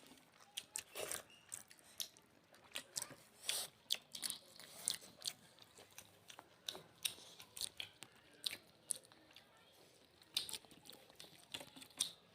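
Close-miked eating: irregular chewing, wet mouth smacks and occasional crunches from people eating a rice-and-curry meal.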